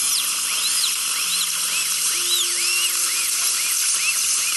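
High-speed dental drill cutting into a wisdom tooth to section it, over a steady hiss of water spray and suction. Its whine rises and falls in pitch about twice a second as the bur bites and eases off.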